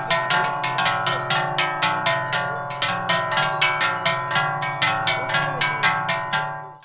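Large Swiss cowbells shaken together in a steady rhythm, about four to five strikes a second, their many tones ringing on into one another; the sound fades out at the very end.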